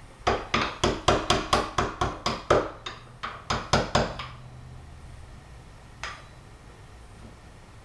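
Hammer blows on a wood chisel, cutting out a lock mortise in the edge of a wooden door: a quick run of sharp knocks, about three a second for four seconds, then one more knock about six seconds in. The chisel is a dull one.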